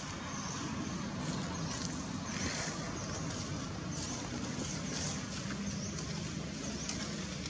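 Outdoor ambience: a steady low rumble under high chirps that repeat about twice a second.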